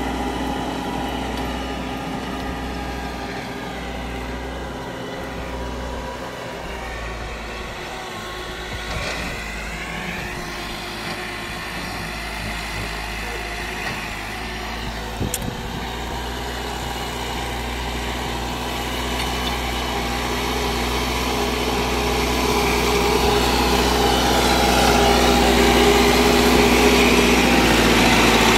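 Massey Ferguson 385's Perkins four-cylinder diesel engine running steadily as the tractor pulls a disc harrow through tilled soil. It grows louder over the last several seconds as the tractor comes close.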